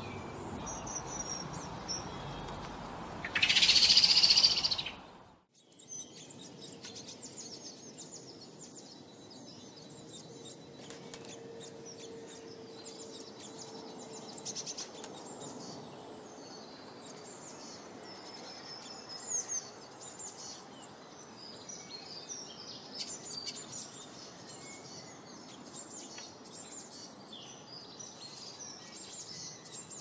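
Small songbirds chirping and calling, many short high chirps, some in quick runs, with a few louder ones later on. About three seconds in, a loud high hiss lasts about a second and a half before the sound briefly cuts out.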